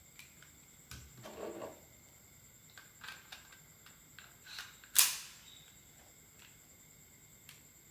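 Gas blowback Colt 1911 airsoft pistol (Chinese-made R31) handled with a few light mechanical clicks and a brief sliding scrape, then firing once about five seconds in. The firing is a single sharp crack with a short hiss-like tail: gas left in the magazine drives the slide with no BB loaded.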